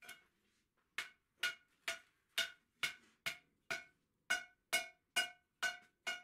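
Hand hammer striking hot steel on an anvil, about a dozen ringing blows at roughly two a second with a short pause midway: the smith is truing the legs of a forged split-bar trivet.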